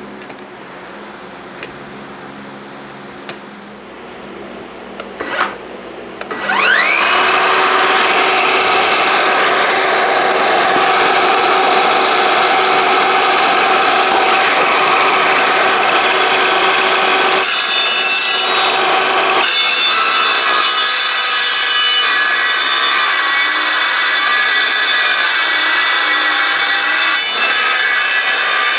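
A few light knocks, then about six seconds in an electric saw spins up with a rising whine and runs steadily as its blade cuts through a steel panel, with a brief easing partway through.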